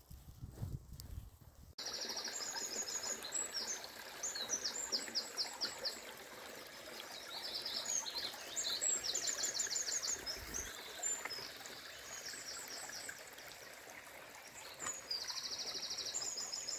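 Small birds singing in repeated quick, high trills and chirps over the steady rush of a shallow rocky stream.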